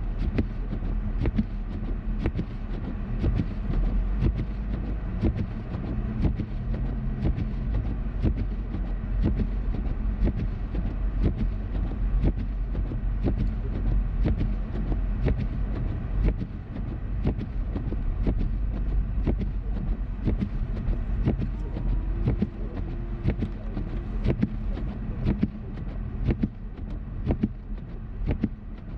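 Car driving through snow: a steady low rumble of engine and tyres, with frequent irregular sharp clicks on top.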